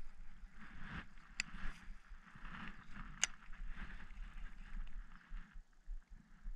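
Baitcasting reel being cranked, its gears whirring in spells as line is wound in, with two sharp clicks partway through. The reeling stops about a second before the end.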